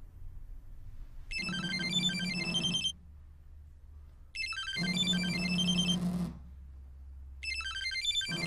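Candybar mobile phone's melodic ringtone, a short tune of high notes repeating three times with pauses between, over a low steady hum.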